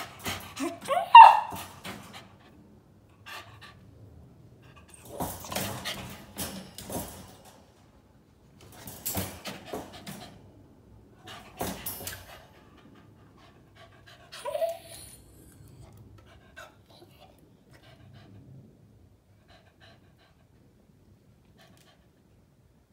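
Peagle puppy panting in bouts, with a loud rising whine about a second in and a shorter whine about two-thirds of the way through, as it demands its food.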